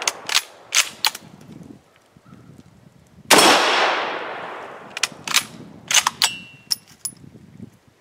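1942 Mosin-Nagant bolt-action rifle firing one shot a little over three seconds in, the report echoing and fading over about a second and a half. Before and after the shot come quick sets of sharp clicks: the bolt being worked to eject the case and chamber the next round.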